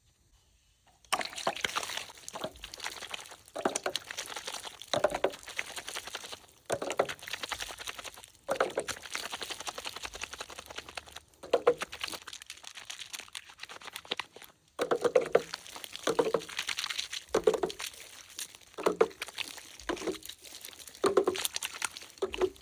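Water pouring and splashing in repeated short bursts, one every second or two, starting about a second in.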